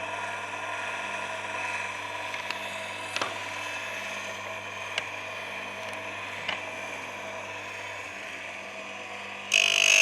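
Electric chainsaw sharpener's motor running steadily, with a few light clicks. Near the end a loud harsh grinding starts as the wheel cuts into a tooth.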